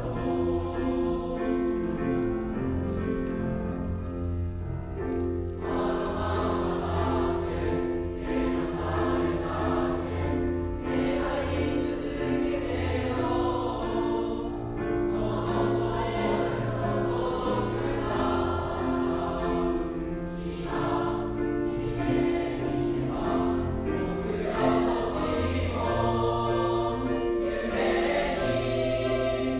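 Choral music: a choir singing sustained chords.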